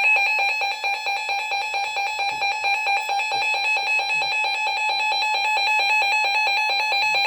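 Weather radio receiver's electronic alert alarm, sounding for a special marine warning: a loud, harsh tone warbling rapidly between two pitches without a break.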